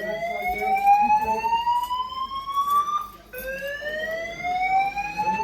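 Hotel fire alarm sounding a slow whoop: a tone that rises steadily for about three and a half seconds, drops back suddenly about three seconds in, and starts rising again.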